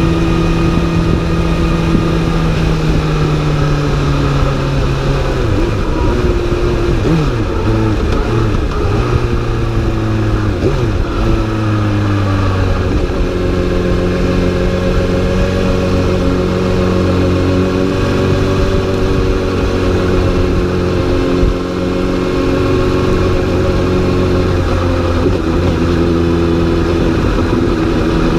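Honda CBR1000RR inline-four sport-bike engine running hard under way. The engine note holds steady at first, falls and wavers for several seconds from about a fifth of the way in, then settles into a steady, lower note for the rest.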